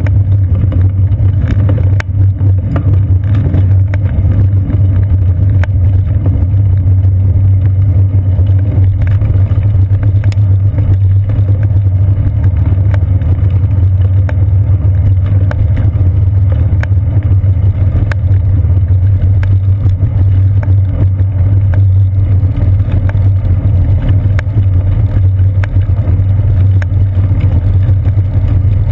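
Steady low rumble of wind and ride vibration picked up by a GoPro camera mounted on a bicycle's seat post while riding, with many small clicks and rattles over it.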